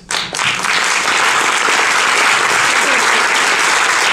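Audience applauding: a few first claps, then full, steady applause within about half a second.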